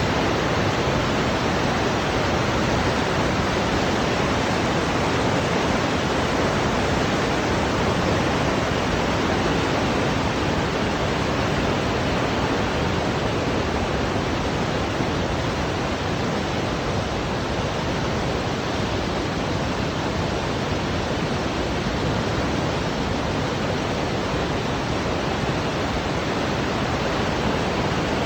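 River water rushing, a steady unbroken roar of flowing water with no change in level.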